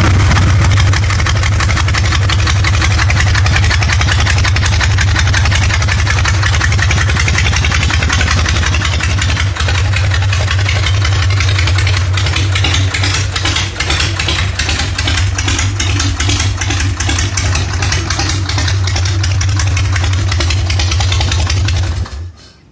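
1979 Harley-Davidson FXS Low Rider's Shovelhead V-twin engine idling steadily, with no revving, then stopping suddenly near the end.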